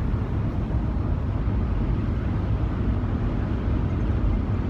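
Steady low rumble, without breaks or any breathing rhythm.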